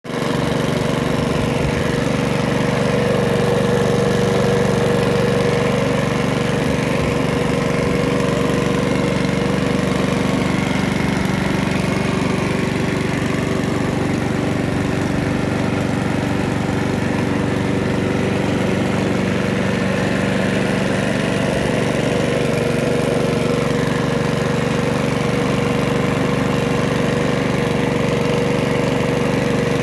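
Mountfield SP414 rotary lawnmower's Mountfield RS100 single-cylinder four-stroke engine running at a steady speed, freshly serviced and back in running order after being a non-runner.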